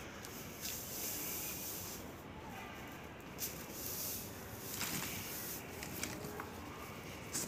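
A cat hissing in long breaths as a kitten approaches, with a few light taps and scuffs as the two cats start to wrestle near the end.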